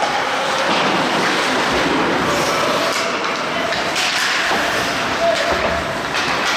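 Ice hockey game noise: a steady wash of skates scraping the ice and spectator chatter, with distant shouts and a few sharp knocks of sticks and puck.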